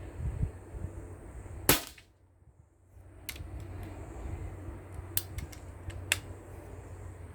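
A single shot from a Steyr LG110 pre-charged pneumatic air rifle, one sharp crack, about two seconds in. Several lighter clicks follow over a low rumble.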